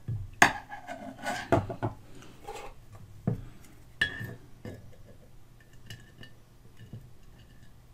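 Small metal parts of a gramophone motor's governor clinking and clattering as they are handled with pliers inside the metal motor case. A sharp clink comes about half a second in, followed by a few more separate taps, one of which rings briefly, then fainter small ticks.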